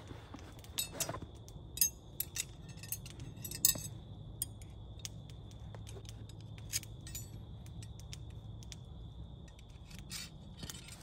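Scattered light clinks and clicks of small hard objects being handled, most of them in the first few seconds, over a steady low hum and a faint steady high tone.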